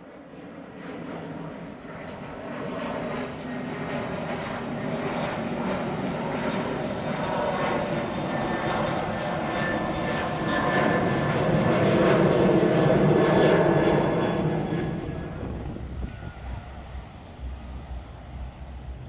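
Jet airliner flying low overhead: its engine noise swells steadily to a peak about twelve seconds in, then fades away.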